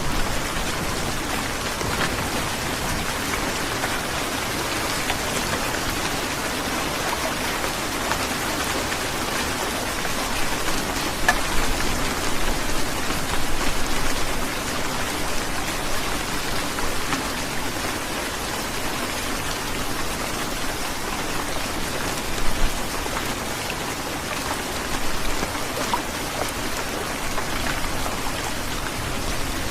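Heavy rain falling steadily: a dense, even hiss of rain on surfaces with scattered louder drops, swelling slightly for a few seconds about halfway through.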